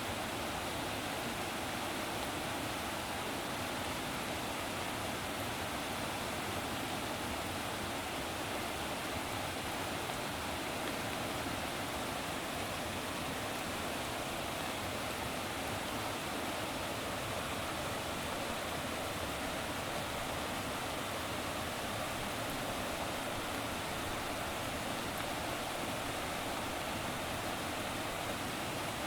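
Steady rushing of flowing water, an even hiss with no breaks or changes in level.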